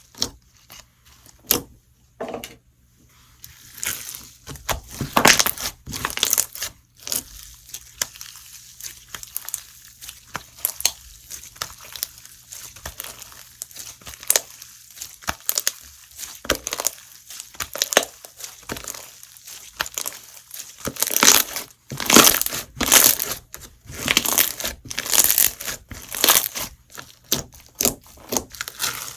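Perlite slime being squeezed and pressed by hand, its perlite granules giving dense, irregular crunching and crackling. A few scattered clicks come first, then the crunching runs almost without pause and is loudest in the last third.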